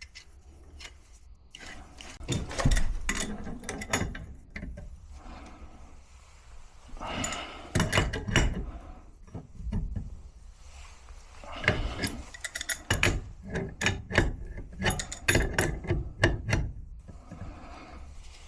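Pipe wrench working a new gas valve onto doped threaded gas pipe: three spells of quick metal clicking and scraping strokes with short pauses between.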